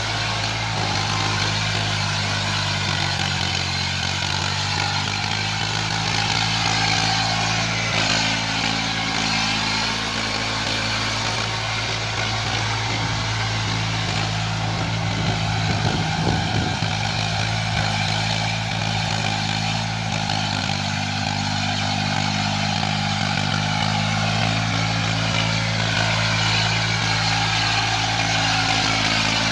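Eicher 480 tractor's diesel engine running steadily under load, its pitch shifting slightly now and then, as it pulls a rotavator through wet, muddy ground, with the tiller's churning mixed in.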